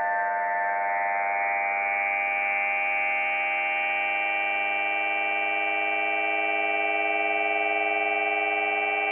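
Electro-acoustic computer music: a dense, sustained drone of many steady electronic tones sounding together. Its top reaches a little higher over the first couple of seconds, then the chord holds without change.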